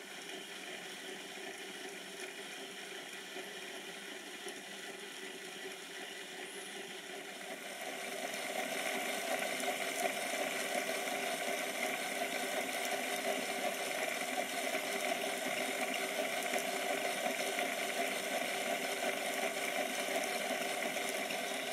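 Rapido OO-gauge Metropolitan Railway E-Class tank engine model running on a rolling road: the steady whirr of its electric motor and geared drive, with the rollers turning under the wheels. It grows louder about eight seconds in.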